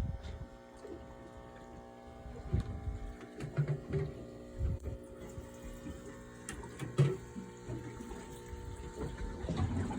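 A boat's motor humming steadily, with water splashing and sloshing and a few knocks and thuds on the deck.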